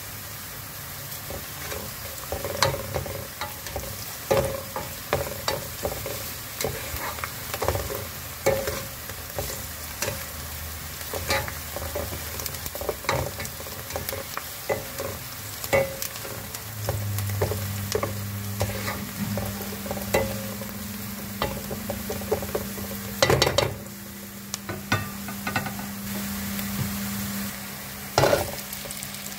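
Diced onions sizzling in hot oil in a pot while a spoon stirs them, scraping and clicking against the pot many times. Near the end, diced potatoes are tipped into the pot with a short loud clatter.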